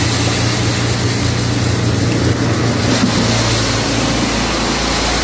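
Plastic-flake dryer running: its blower motor gives a steady hum under the rush of air and shredded plastic flakes pouring out through the cyclone.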